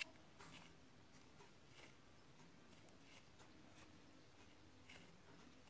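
Near silence, with a light click at the start and a few faint, soft rustles of a hand handling a foam sponge squishy toy.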